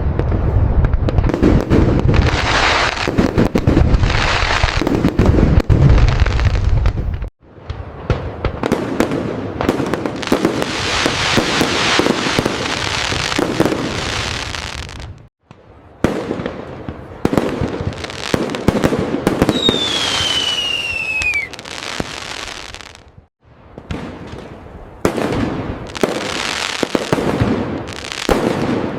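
Fireworks display: dense crackling and many rapid bursts, with a deep booming rumble through the first seven seconds. About twenty seconds in, a whistle falls in pitch for about two seconds. The sound breaks off sharply three times and starts again each time.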